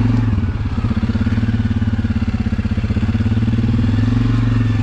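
Suzuki KingQuad ATV engine running at low revs, a steady even putter with a slight dip in revs about half a second in.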